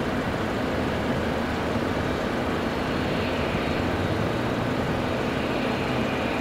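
Cessna Citation M2's twin Williams FJ44 turbofan engines running at taxi power: a steady rush with a faint high whine that grows in the second half.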